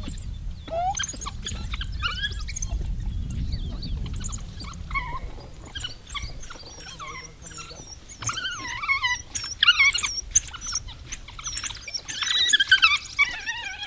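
African wild dogs twittering and squealing in high, wavering calls that come thick and fast in the second half: the greeting and begging calls of a pack feeding its pups by regurgitation. A low rumble runs underneath for the first few seconds.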